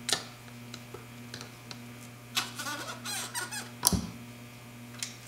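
Valve seal pliers working an old valve stem seal off the valve guide of an LS cylinder head: a click as they grip, then about a second of squeaking as the seal is twisted and pulled up the guide. Two sharp clicks follow near the end as it comes free.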